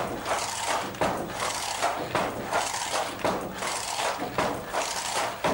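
Wooden handloom with a cord-pulled fly shuttle in use: the shuttle is jerked across the warp and the batten knocks against the cloth, a wooden clack about once a second with rattling in between.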